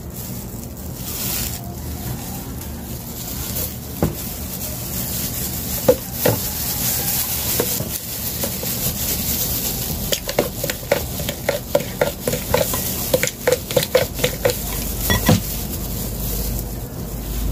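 Thin plastic bag worn as a glove crinkling and rustling as the hand moves, with a few sharp clicks and then a quick run of crackles and clicks in the second half.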